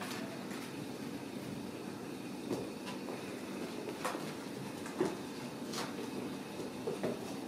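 Kittens scrambling and wrestling on a carpeted cat tower: a few scattered light knocks and bumps over a steady background hiss.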